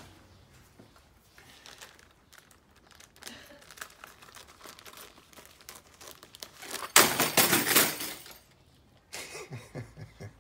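Plastic packaging bag crinkling as it is handled and cut open with scissors: soft rustles and snips, then a loud burst of crinkling about seven seconds in that lasts over a second.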